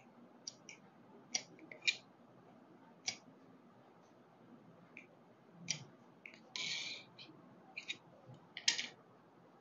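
Tailoring scissors cutting through blouse fabric in short, sharp snips at irregular intervals, about a dozen in all, with one longer cut about two thirds of the way through.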